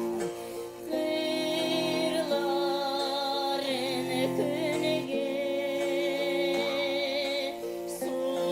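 Folk song: a voice holding long, wavering notes over steady instrumental accompaniment.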